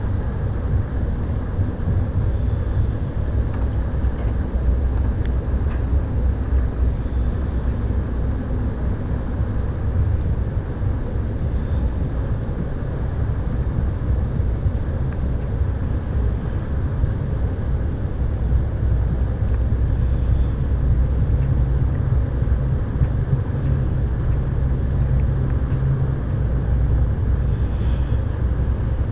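Steady low rumble of an Amtrak California Zephyr passenger car rolling along the track, heard from inside the car.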